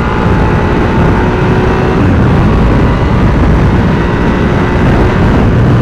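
Suzuki SV650 motorcycle cruising at steady highway speed: heavy wind rush over the microphone with the V-twin engine holding a steady note underneath.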